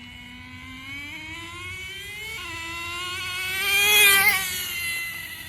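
Small .15 nitro engine of a radio-controlled car running at high revs, its high-pitched note climbing as the car speeds up and comes close. It is loudest about four seconds in, then the pitch drops and the sound fades as it moves away.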